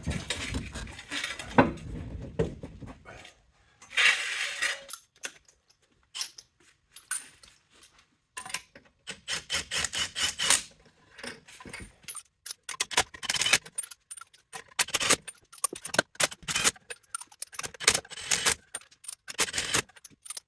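Loose steel lug nuts and a socket clinking and rattling as they are handled and fitted, in a run of sharp, irregular metallic clicks. The first few seconds hold heavier, duller handling noise.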